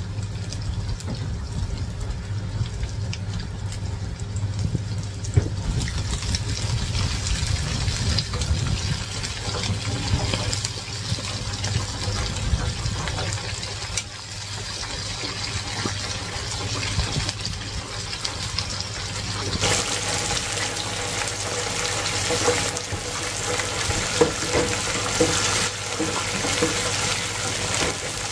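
Wontons deep-frying in the hot oil of a stainless steel electric deep fryer, set to its highest heat; the oil bubbles and sizzles steadily, swelling louder about twenty seconds in, over a steady low hum.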